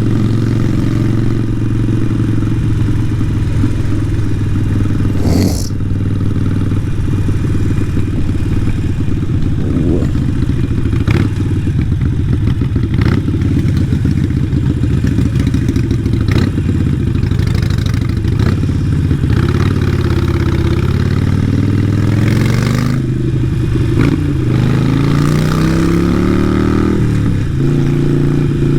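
Harley-Davidson Sportster 883 Iron's air-cooled V-twin running through a Vance & Hines exhaust while riding. The engine note is steady at first, then rises and falls in pitch several times in the last third as the bike speeds up and slows. A few short knocks come along the way.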